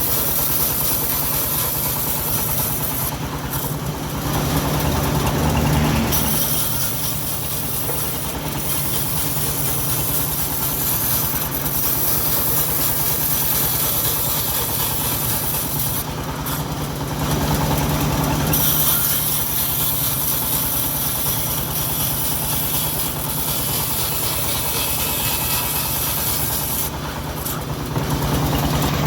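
Engine of a homemade bandsaw mill running steadily while the blade saws through teak, with a high sawing hiss over the engine that drops away briefly three times.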